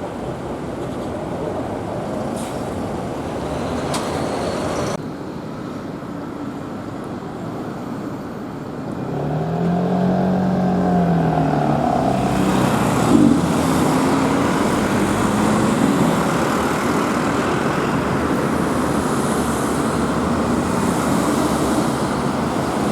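Urban road traffic noise from passing motor vehicles. About nine seconds in, one engine's pitch rises and falls as it revs and eases off.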